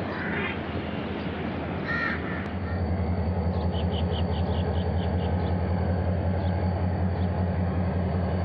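Crows cawing near the start and again about two seconds in, over a steady low pulsing drone of a diesel locomotive's engine that grows louder about two and a half seconds in as the train draws in.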